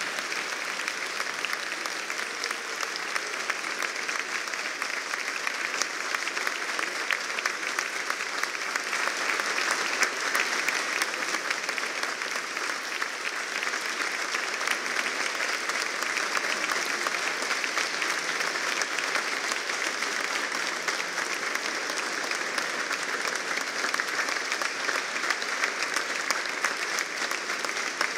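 A large audience applauding steadily, many hands clapping at once without letting up.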